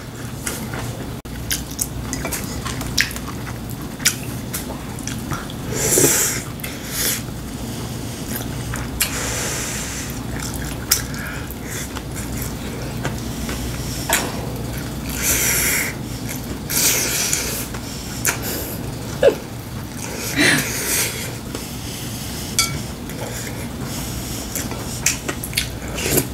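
A person eating at the table: chopsticks and a spoon clicking against ceramic bowls, with chewing and slurping between the clicks.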